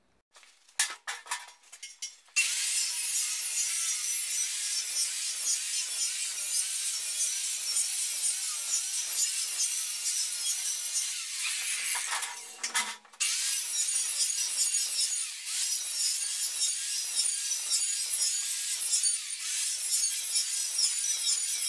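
Big angle grinder cutting through the thin steel tubes of an old metal bed frame: a loud, steady, high grinding hiss whose motor pitch wavers as it loads up in the cut. Knocks and clatter come in the first two seconds before the cut starts, and there is a short break with a couple of knocks about twelve seconds in before the cutting resumes.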